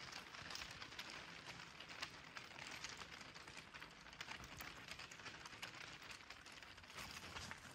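Bicycle rolling along a path, its tyres making a faint, continuous crackling over the surface.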